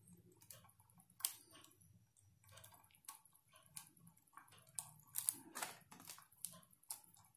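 Faint rustling and scattered small clicks of a coiled foot-pedal cable being handled and unwound, with a few sharper ticks about a second in and again past the middle.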